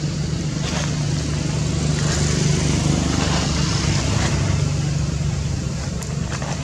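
Steady low engine hum, like a motor vehicle running, with a few faint ticks over it.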